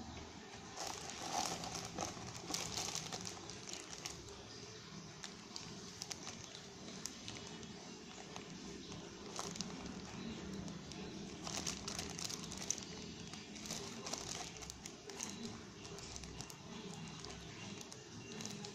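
Clear plastic parts bags from a Tamiya Mini 4WD kit crinkling as they are handled, in irregular bursts, busiest about a second in and again around eleven seconds in.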